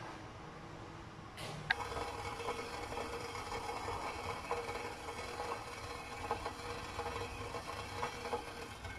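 Red silicone spatula stirring melted white chocolate in a stone-coated saucepan, with soft scraping and light taps against the pan. A steady hum sets in about a second and a half in.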